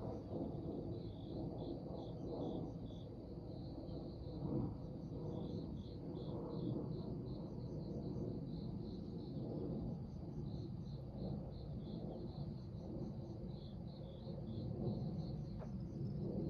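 Crickets chirping in short pulses, repeated in groups, over a steady low rumbling noise.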